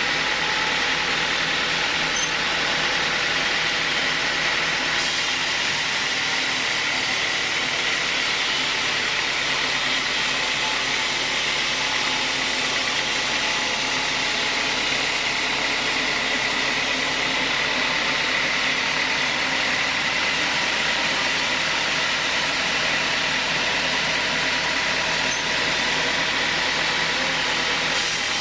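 Sawmill saw running steadily through teak wood: a dense, even machine noise with a steady high tone that does not let up.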